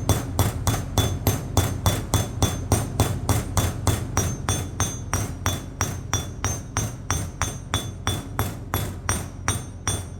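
Hammer tapping a new bearing down into a Kubota Z421 mower-deck spindle housing: steady, even strikes about three and a half a second, worked around the bearing's edge to seat it, each blow with a short metallic ring.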